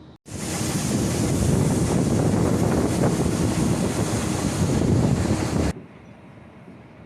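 Loud, steady rushing noise, with no tone or rhythm, that starts and stops abruptly.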